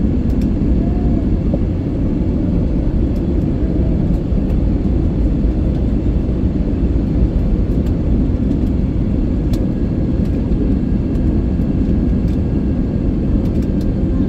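Airbus A321neo airliner cabin noise during the descent on approach: the engines and the rushing airflow make a steady, deep, even rumble, with a faint steady hum on top.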